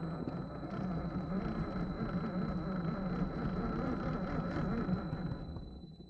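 Electric motor and gear drivetrain of a 1/10 scale RC rock crawler running under throttle as it climbs a rock step, a steady wavering drone that dies away near the end.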